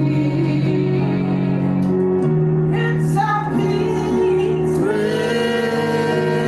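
Worship song music: voices singing long held notes over instrumental accompaniment, the chords shifting every second or two.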